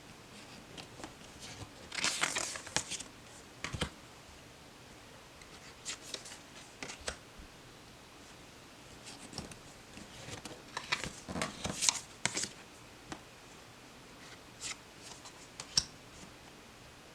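Tarot and oracle cards being handled: short rustles and slides of card stock, with light taps and clicks as cards are picked up and laid down. It comes in two busier bursts with scattered single clicks between them.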